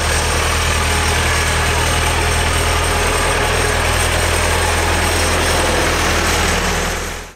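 Diesel tractor engine running steadily with a constant low hum as a John Deere tractor drives slowly past close by; the sound fades out near the end.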